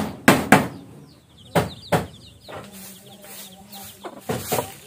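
A hammer nailing down split-bamboo floor slats: five sharp strikes in the first two seconds, with faint bird chirps in the background. Near the end come a few brushy strokes of a broom sweeping bare dirt.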